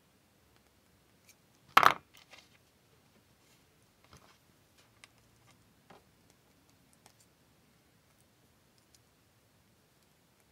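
Small metal chain links and jump rings clinking together as they are handled by hand, with one sharp, ringing clink about two seconds in, then a few faint ticks.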